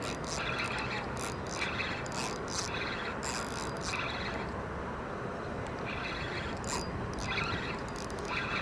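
Fishing reel being wound in short, uneven spurts of clicking after the cast, over steady background noise.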